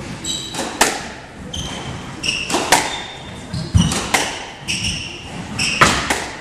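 Squash rally: the ball cracks off rackets and walls roughly once a second, with short high squeaks of shoes on the wooden court floor between the hits.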